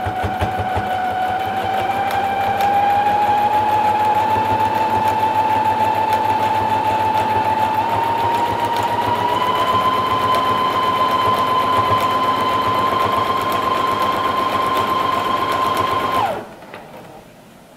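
Electric household sewing machine stitching at a steady run: a motor whine with fast needle clatter, creeping slowly up in pitch, then stopping abruptly near the end.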